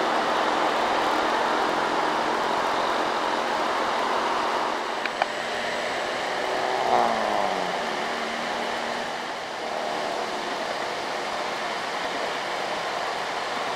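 Loaded diesel dump truck engines labouring up a hill road with traffic noise around them. There is a sharp click about five seconds in, and about seven seconds in an engine's pitch briefly falls and rises again.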